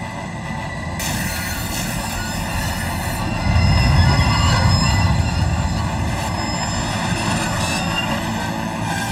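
Animated steam train's wheels screeching on the rails as it brakes hard to an emergency stop, with a heavier rumble swelling in about three and a half seconds in.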